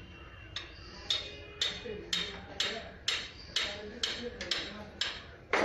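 A series of sharp, evenly spaced taps or knocks, about two a second, with the last one near the end the loudest.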